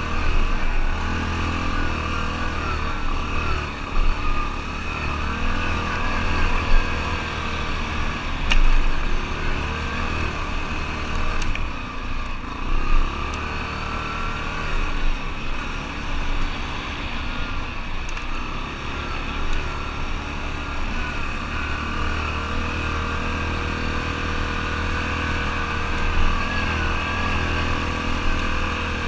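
ATV engine running steadily while riding, its pitch wavering slightly with the throttle, with a few short thumps along the way.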